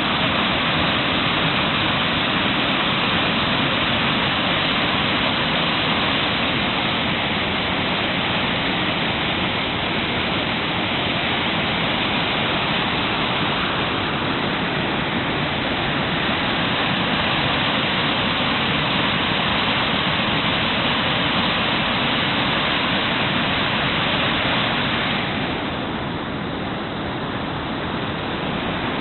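Kivach waterfall: a steady, full rush of falling water, easing slightly near the end.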